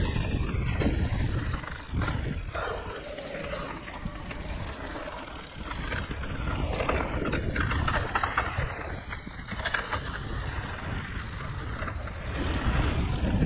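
Giant Reign E+ e-mountain bike riding a rough enduro trail: a steady rumble of tyres rolling over the ground, with frequent knocks and rattles from the bike over bumps.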